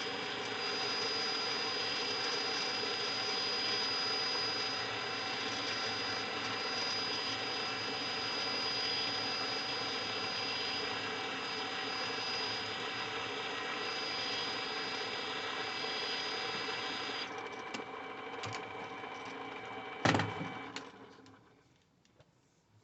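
A motor-driven machine running steadily with a high, steady whine over it. The whine cuts off suddenly about 17 seconds in, a single knock follows about 20 seconds in, and the running noise then dies away.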